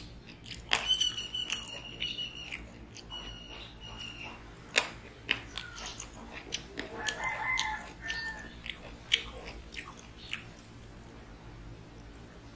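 Close-up eating sounds of a man chewing fried pointed gourd (potol bhaja) and rice, with wet mouth clicks and lip smacks. The sharpest smacks come about a second in, near five seconds and near nine seconds.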